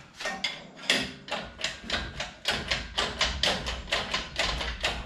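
Metal cab-lifting stand being worked by hand, its mechanism clicking rapidly and evenly, about five clicks a second, with a low rumble under the clicks.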